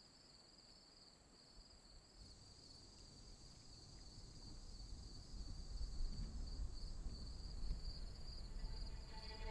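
Faint, steady chorus of insects trilling high and evenly in woodland, with a low rumble building underneath after about two seconds.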